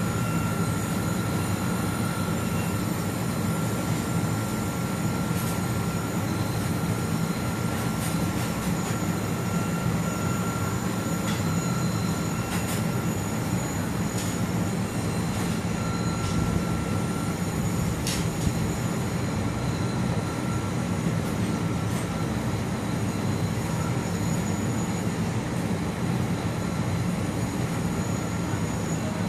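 LG air conditioner compressor running with a steady hiss over a low hum, with a thin steady tone above it.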